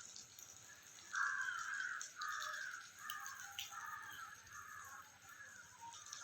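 Crow cawing: a run of about seven caws starting about a second in, growing fainter.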